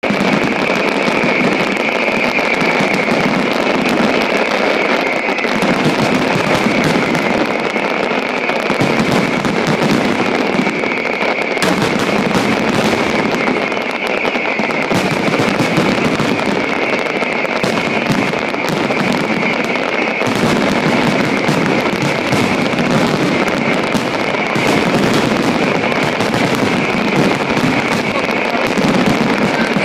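Fireworks grand finale barrage: a dense, unbroken run of overlapping shell bursts and crackle, steady and loud throughout.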